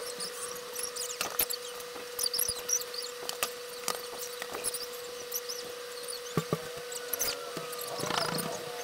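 Pencil scratching and paper handling on a sketchbook: short squeaky scratches and scattered clicks over a steady hum, with a louder scrape near the end.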